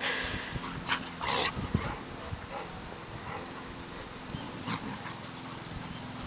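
Newfoundland puppies play-fighting, giving short vocal sounds: several in the first second and a half and one more near the five-second mark.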